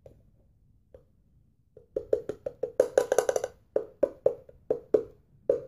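Palm slapping the base of an upturned cornstarch canister to knock cornstarch into a bowl, making short ringing knocks. A few faint taps come first, then a quick flurry of knocks in the middle, then single knocks about every third of a second.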